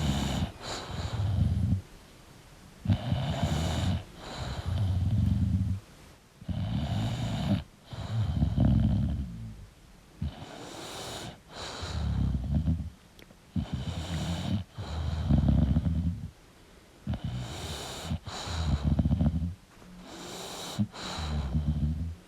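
Sleeping English bulldog snoring with each breath, in rhythmic bursts about a second long, roughly every two seconds.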